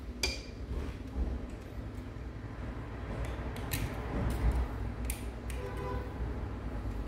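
Scattered small clicks and snips of hand tools as the excess gasket is trimmed from the joint of a freshly closed moped crankcase, over a low steady hum.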